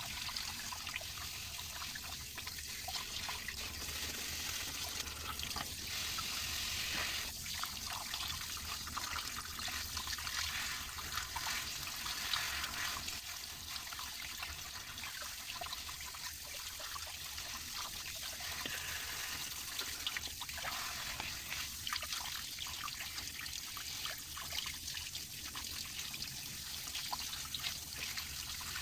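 Water running and trickling steadily, as from a kitchen tap, with a few light knocks.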